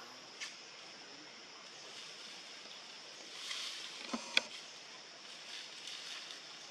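Outdoor ambience: a steady high hiss, with a short click early, a brief rustle about three and a half seconds in, then two sharp clicks or knocks in quick succession just after four seconds in, the loudest sounds.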